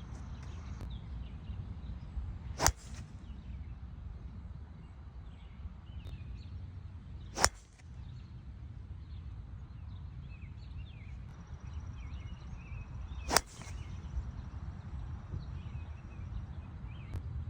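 Golf club striking a ball three times, a sharp crack every five or six seconds.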